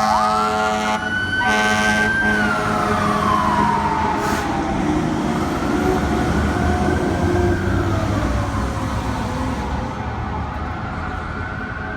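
Fire truck air horn blasting in the first two seconds, broken by short gaps, over a siren that jumps up in pitch, holds, then wails slowly down and up again. Truck engine rumble runs underneath, and the siren grows fainter near the end.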